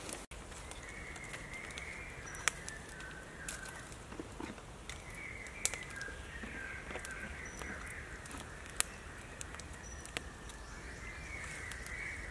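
Birds calling in stretches of warbling chatter, with a few sharp clicks scattered through and a steady low rumble of outdoor background.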